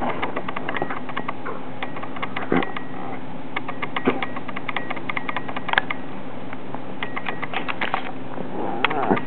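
Soft irregular clicking and rustling of a hand petting a rat terrier on a bed, over a steady hum. Near the end the terrier begins a wavering whine.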